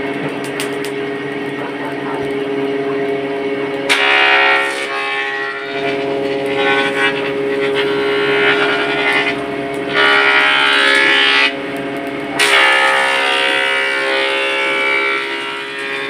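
Forge air blower running with a steady whine, driving air into the forge fire. A louder rushing noise starts and stops abruptly about four seconds in, again around ten seconds, and from about twelve seconds on.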